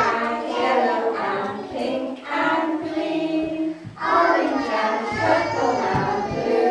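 A group of young children singing together, in phrases with a short break about four seconds in.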